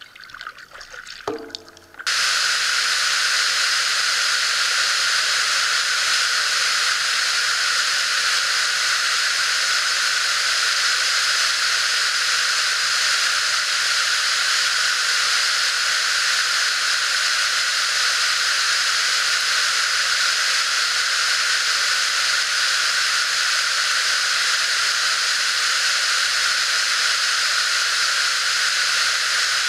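Rushing water of a cascading woodland waterfall running high: a loud, steady rush that starts suddenly about two seconds in.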